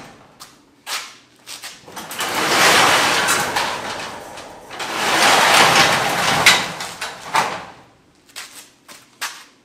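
Sectional garage door pushed up by hand, sliding noisily along its metal tracks in two long pushes, with clicks along the way and a few clacks near the end as it comes fully open.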